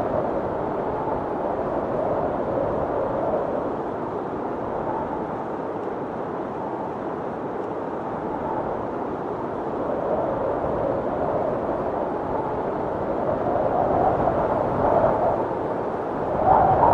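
Storm wind blowing hard in gusts, a dense rushing noise that swells and eases in slow waves. It builds up strongly near the end.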